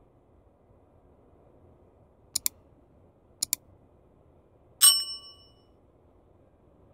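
Two quick double clicks about a second apart, then a single bright metallic ding that rings out for under a second.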